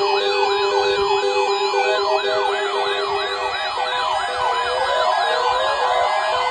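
Several electronic sirens sounding together: repeated quick falling sweeps about twice a second, with a faster warble higher up and a steady low tone that stops about halfway through.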